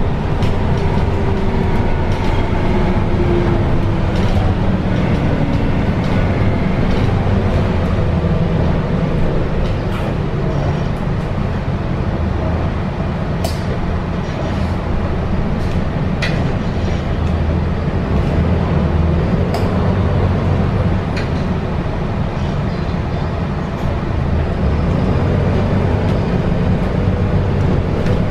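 Interior running noise of a MAN Lion's City A22 Euro 6 diesel bus under way on a wet road: a steady low engine drone with tyre noise. A falling whine in the first few seconds, and a few sharp clicks scattered through.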